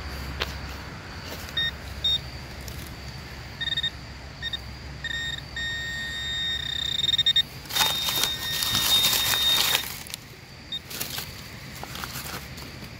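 Metal detector beeping in short high tones, then sounding one held tone as the target is located in the hole. About eight seconds in comes a loud burst of scraping and rustling from digging in the soil, with more near the end.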